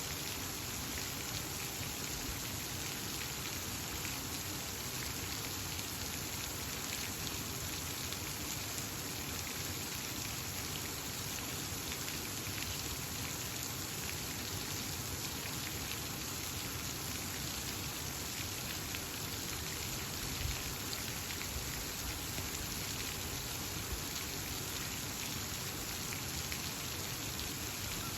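Steady hiss of water, full of small splashing drops, unchanging throughout.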